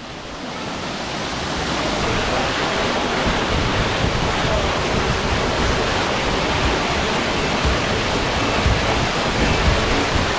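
Waimano Falls' water falling and splashing into its pool: a steady rush that grows louder over the first couple of seconds, then holds.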